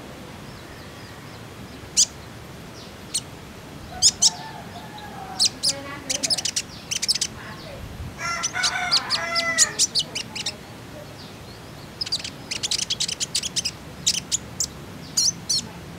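Male brown-throated sunbird (kolibri ninja) in green plumage giving sharp, high-pitched chirps and short rapid trills in scattered bursts. Lower-pitched wavering calls come in around the middle.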